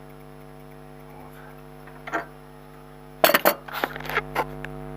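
A wrench clicking and knocking on the nut of a new front anti-roll bar link as it is tightened: a handful of sharp metallic clicks, the loudest cluster about three seconds in, over a steady electrical hum.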